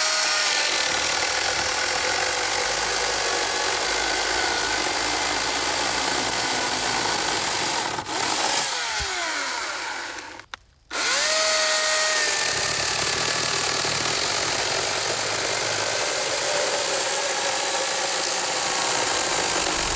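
Husqvarna Power Axe 350i battery chainsaw in boost mode, its motor whining up to speed and sawing through a dry log. It winds down about nine seconds in, stops briefly, then spins up again for a second cut and winds down at the end.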